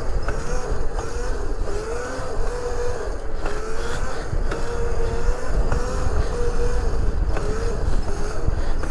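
Electric motor of an upgraded Razor electric bike whining while riding at speed: a steady tone that wavers slightly up and down, over a low rumble of wind and road, with a few faint clicks.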